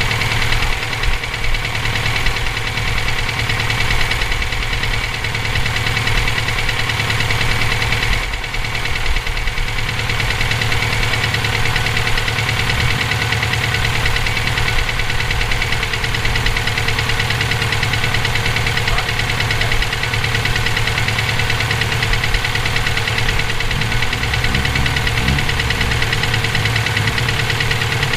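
Subaru EJ257 turbocharged flat-four engine running steadily with a nasty knocking noise, which the owner suspects could be rod knock, a spun bearing or valve lash needing adjustment.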